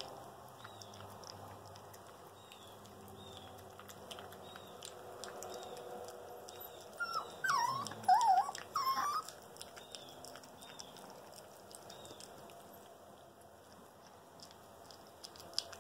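Puppy whining in a short run of high, wavering cries about seven to nine seconds in, over faint clicking from a puppy eating out of a tin can.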